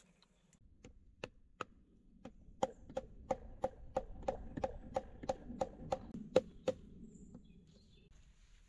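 Wood being hammered at the log wall of a bushcraft shelter: a run of sharp, hollow wooden knocks, about three a second, a few spaced strikes first and then a steady beat that stops well before the end.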